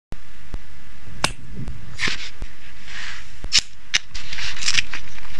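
Washi tape being peeled off its roll and laid on a paper notebook page: several short rasping peels and a few sharp clicks.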